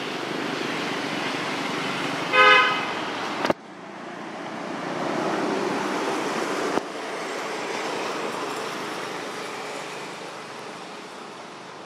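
Road traffic passing, with a vehicle horn giving one short toot about two and a half seconds in. A sharp click follows about a second later, where the sound drops off suddenly.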